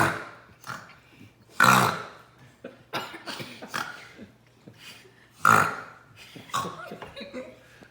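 Kids making loud, deliberate burp-like vocal noises: three big ones, at the start, near two seconds in and about five and a half seconds in, with smaller grunts between.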